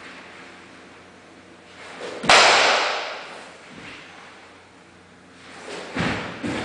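Karate kata movements: one sharp crack about two seconds in that rings out in a large hall, with softer swishes and snaps of the uniform near the end.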